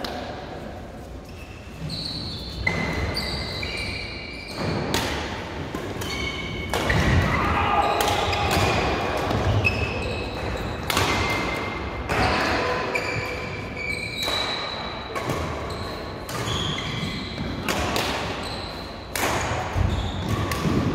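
Badminton play in a large hall: sharp racket hits on the shuttlecock and short high squeaks of shoes on the court mat, again and again, with background voices.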